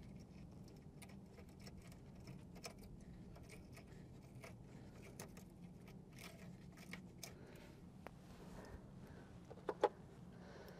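Faint scattered clicks and scrapes of metal parts being handled and lined up while fitting a diesel bunk heater, over a low steady hum, with two sharper clicks near the end.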